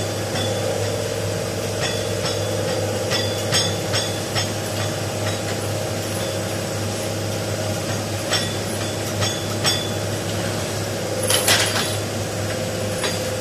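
Scattered metallic clinks and knocks of hand tools working on a car's underside, with a louder clattering burst about eleven seconds in, over a steady hum.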